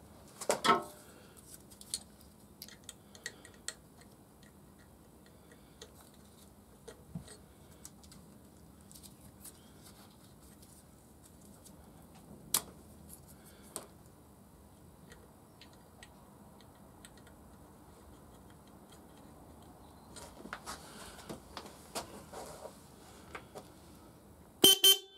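Electric disc horn on a BSA B31 motorcycle being tested as its wiring is worked on: a brief honk about half a second in, then two short, loud blasts near the end. Small metallic tool clicks and taps come in between.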